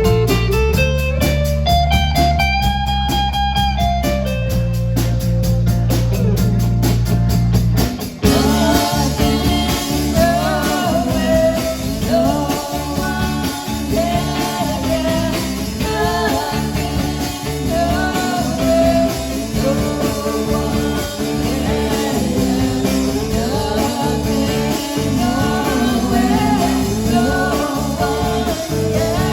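Live rock band playing a slow psychedelic rock song. Guitar plays a gliding melody over sustained low notes, then about eight seconds in the full band comes in with singing.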